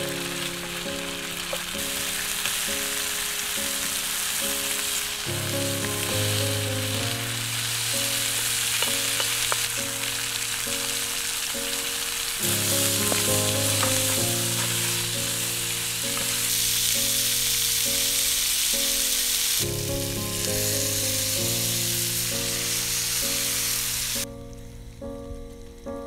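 Food sizzling and frying in a hot pan on a portable gas stove while it is stirred with a spatula, with a few small clicks from the stirring. The sizzle cuts off near the end. Background music plays underneath.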